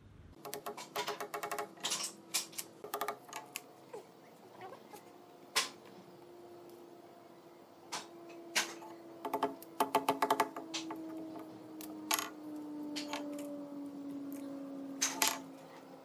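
Sharp clicks and taps, some in quick rattling runs, from a long metal rule and tape measure being handled and laid on a thick wooden slab. A faint steady hum that slowly falls in pitch runs underneath.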